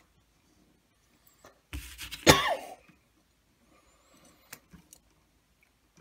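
A single loud cough about two seconds in, followed by a couple of faint clicks as wires and pliers are handled.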